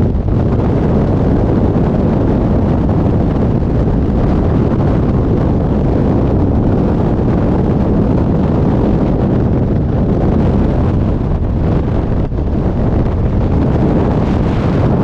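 Loud, steady rush of wind buffeting the microphone, as in skydiving freefall.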